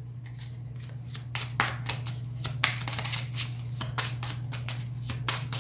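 A deck of oracle cards being shuffled by hand: a quick run of short papery snaps, several a second, starting about a second in, over a steady low hum.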